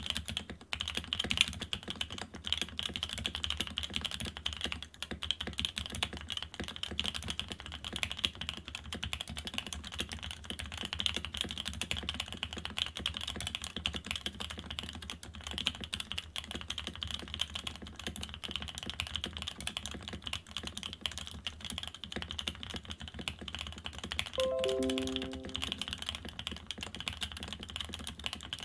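Sam S80 top-mount mechanical keyboard typed on fast and continuously with its bottom cover removed: a dense clatter of keystrokes. About 24 seconds in, a short run of tones stepping down in pitch sounds over the typing.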